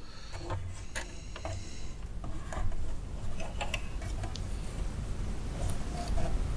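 Faint scattered clicks and ticks of fingers working a sewing machine's top-load bobbin area: thread drawn through the bobbin case channel and fingertips tapping the metal needle plate. A low steady hum runs underneath.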